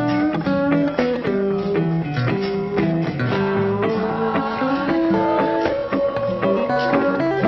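Blues music led by guitar: picked single notes and bent notes over chords, playing steadily.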